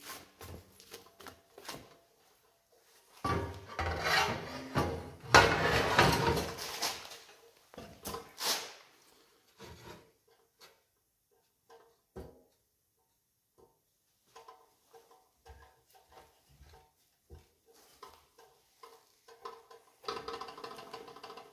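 Metal-cutting cold saw working a mitre cut in steel. Loud grinding and clatter come from about three to seven seconds in, then mostly faint scraping and ticks, and the saw runs again steadily near the end.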